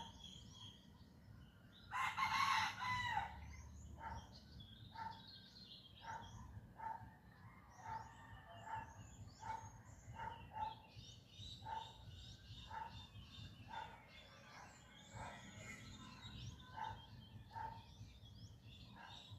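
A rooster crows once about two seconds in, the loudest sound. Small birds chirp throughout, one repeating a short call about every second.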